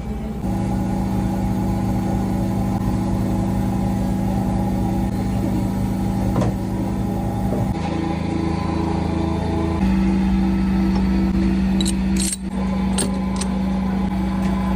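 A motor running steadily with a constant hum; its tone shifts about 8 seconds in and again about 10 seconds in, and it briefly dips about 12 seconds in.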